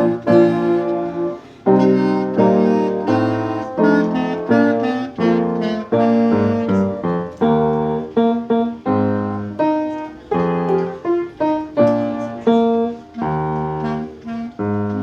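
Piano accompaniment playing a rehearsal piece: a steady run of struck chords and notes, each sharply attacked and then fading.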